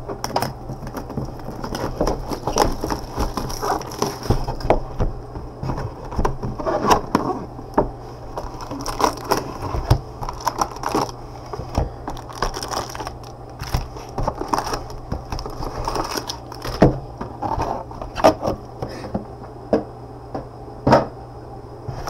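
Gloved hands opening a 2017 Illusions football trading-card box and handling the card packs: irregular cardboard clicks, taps and crinkling of pack wrappers, over a steady low hum.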